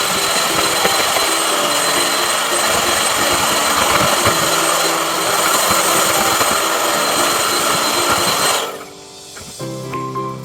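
A small electric motor running steadily with a high whine, cutting out about nine seconds in; background music plays underneath.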